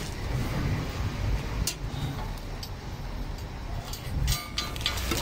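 A few light clicks and metal taps over a steady low rumble: hands working the chain and steel rails of a pickup truck's luggage cage.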